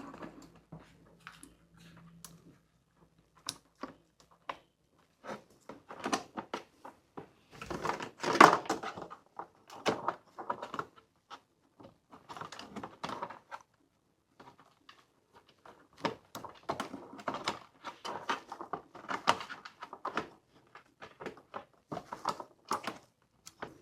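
Irregular clicks, taps and rattles of hands handling the plastic casing and parts of a bathroom heater during a main-board replacement, in bursts with a louder knock about eight seconds in. A faint low hum runs under the first few seconds.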